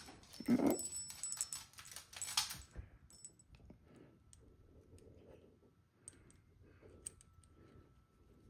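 Peerless handcuffs and a handcuff key clicking and rattling as the key is worked at the cuff's lock: a busy run of small metallic clicks and taps in the first two and a half seconds, then fainter scattered clicks.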